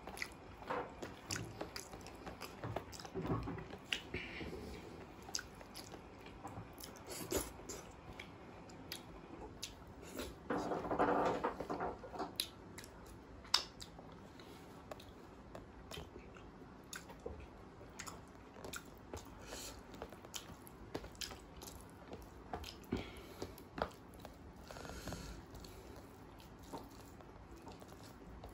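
Close-miked eating: wet chewing and lip smacking with frequent sharp mouth clicks, along with fingers squishing and wiping soft curry and rice on a plate. There is a louder, denser stretch of about a second and a half near the middle.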